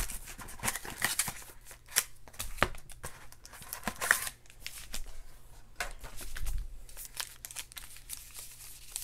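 Foil-wrapped trading card packs being handled and shuffled by hand: irregular crinkling rustles and scattered light clicks.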